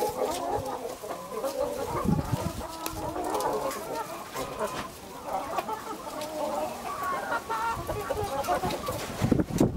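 A flock of Brahma hens clucking, with many short, wavering calls overlapping. A burst of low rumble comes near the end.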